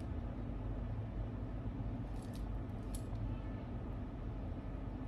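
Steady low room hum, with a few faint, light clicks about two to three seconds in.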